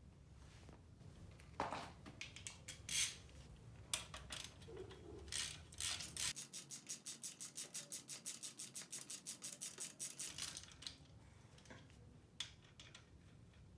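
Metal tools and parts clicking and knocking a few times, then a hand ratchet wrench clicking rapidly and evenly, about seven or eight clicks a second, for about four seconds.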